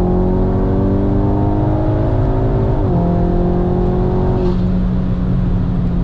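Audi S3 (8Y)'s turbocharged 2.0-litre four-cylinder on an E85 Stage 1 tune, accelerating hard, heard from inside the cabin. The engine pitch climbs steadily, drops sharply with an upshift about three seconds in, and climbs again. About four and a half seconds in it levels off to a steady, quieter note.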